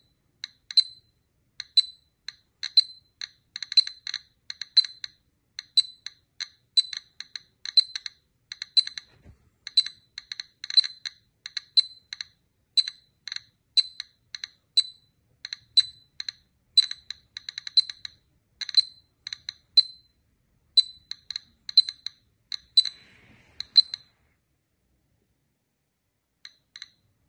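Light, sharp clinks, coming in small clusters about once a second. They stop a few seconds before the end, then two more follow after a pause.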